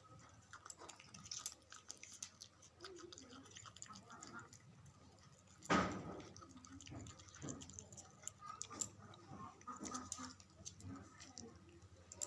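A puppy chewing and eating, a run of small clicks and smacks. One louder thump about halfway through.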